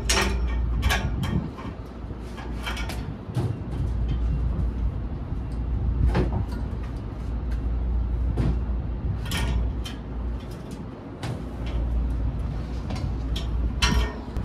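Scattered metal knocks and clanks as a worker in a safety harness climbs out of a gondola cradle through its steel frame, over a steady low rumble.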